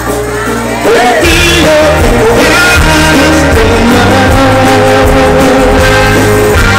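Live norteño band music played loud through a concert sound system: accordion, guitar, drums and singing. A held low note gives way to the full band about a second in.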